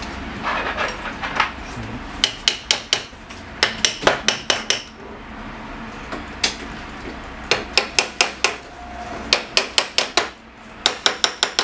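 Sharp metallic clicks and clinks in quick bursts of several at a time, from 3D printer kit parts knocking against steel rods and hardware as they are handled.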